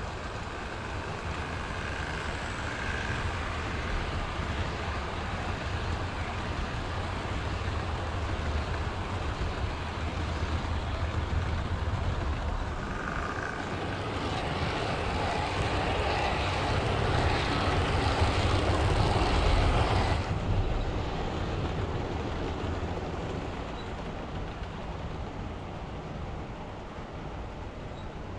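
OO gauge model train running through the layout: a steady electric-motor hum with the rumble of wheels on the track, building to its loudest as the train comes close, then dropping away and fading as it passes.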